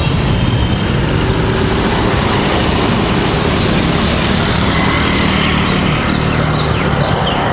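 Road traffic: a steady mix of vehicle engines running and road noise.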